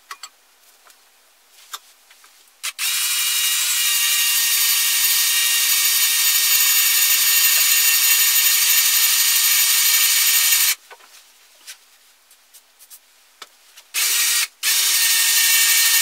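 Cordless drill boring through a metal tree-climbing spike clamped in a vise: a steady high-pitched whine that runs for about eight seconds, stops, gives a short burst, then runs again near the end. A few light taps and clicks come before it starts.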